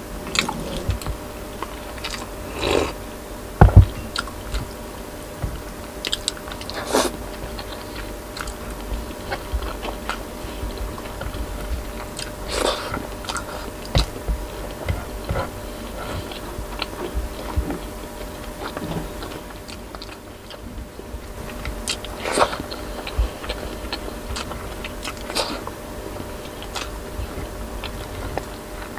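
Close-miked chewing and mouth sounds of a person eating rice and vegetables by hand, with many short, sharp clicks and smacks scattered throughout.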